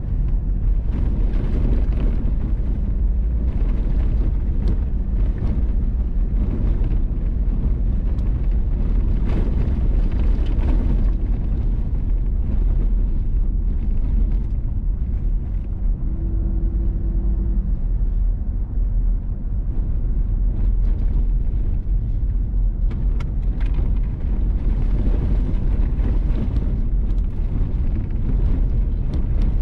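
Vehicle driving on a gravel road: a steady low rumble of engine and tyres, with scattered clicks and a brief hum a little past halfway.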